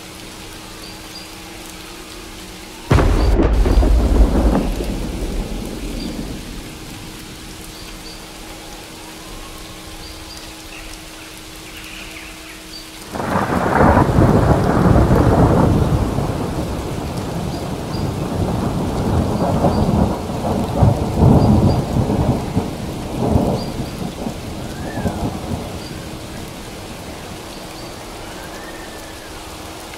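Steady rain with thunder: a sudden clap about three seconds in that fades over a few seconds, then a long rolling rumble from about thirteen seconds in that swells several times before dying away.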